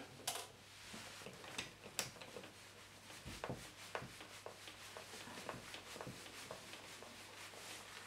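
Faint, scattered clicks and rubbing from hands fitting a small plastic magnetic door contact onto a uPVC door frame, with a soft thump about three seconds in.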